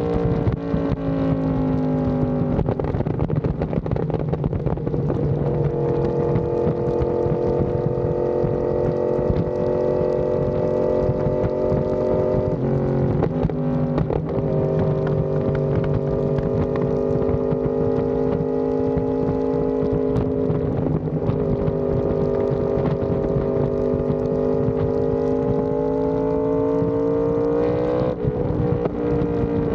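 Yamaha R1M crossplane inline-four through an SC Project exhaust, running under steady load at highway speed. The pitch holds mostly level with slow rises and falls, dips briefly about 13 seconds in, then climbs and drops sharply near the end.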